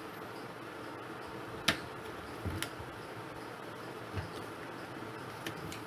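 Plastic pieces of a Hot Wheels drag race track being handled and fitted together: one sharp click a little under two seconds in, then a second click, a couple of dull knocks and a few light clicks near the end, over a steady faint background hum.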